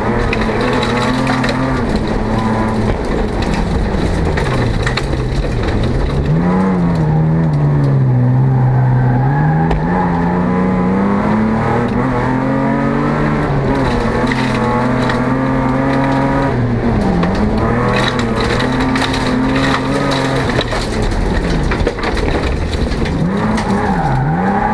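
Folk-race car engine heard from inside its stripped cabin, running hard at high revs. The pitch climbs and falls back several times as the driver lifts off and changes gear. Scattered sharp ticks and clatters sound against the car throughout.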